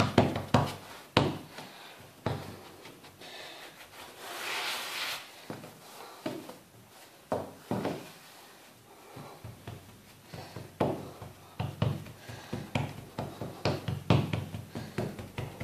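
Hands patting and pressing a round of kesra dough flat on a floured worktop: a run of soft slaps and knocks, with a brushing rub about four to five seconds in. Near the end the pats come quicker, about three a second, as the dough is spread thin.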